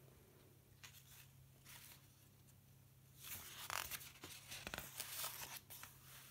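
Pages of a paper children's magazine being opened and turned by hand, a quiet paper rustle starting about three seconds in, with a few faint taps of the hands before it.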